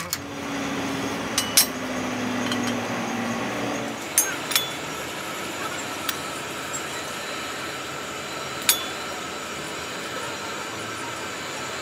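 A few sharp metallic clinks, about five in all, as steel truck brake shoes and their linings and rivets are handled and set against each other, over a steady background noise with a low hum in the first few seconds.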